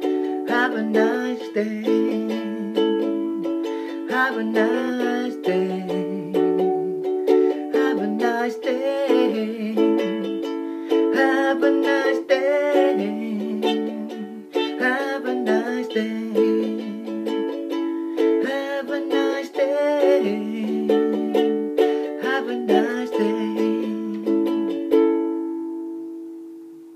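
Ukulele strummed in a steady rhythm, chords without singing. Near the end a last chord is struck and left to ring out and fade.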